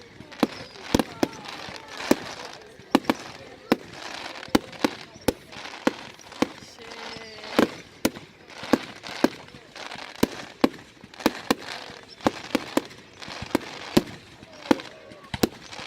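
Fireworks going off in a rapid, irregular barrage of sharp bangs, two or three a second, with crackling between them.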